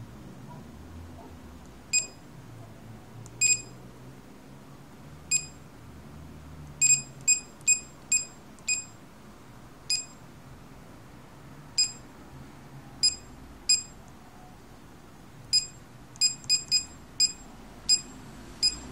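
Short high electronic beeps, about twenty, irregularly spaced and sometimes several in quick succession: the key-press beeper of a TFT touch-screen HMI panel sounding as a finger taps its on-screen buttons.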